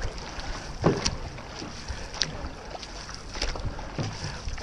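Paddles of an OC6 outrigger canoe crew catching and pulling through the water, a splash every second or so in the stroke rhythm, over a steady rush of water and wind.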